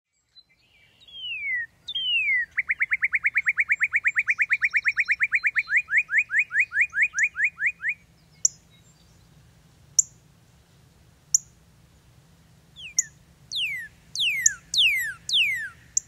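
Northern cardinal singing. Two falling whistles lead into a fast trill of repeated down-slurred notes lasting about five seconds. After a few sharp, spaced chip notes, a phrase of slower down-slurred whistles comes near the end.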